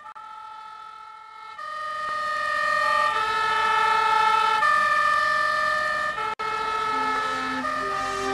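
Background music: sustained held chords that change every second or two, with a brief dropout about six seconds in.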